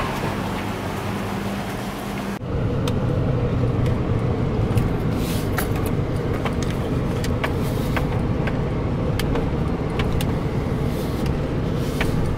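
A steady hum at first, then, after a cut about two seconds in, a car driving slowly on a dirt and gravel road, heard from inside the cabin: low tyre and road rumble with frequent sharp ticks of stones against the car's underside.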